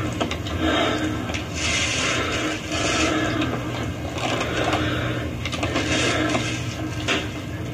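Irregular rustling and scraping noises in bursts about once a second, over a steady low hum.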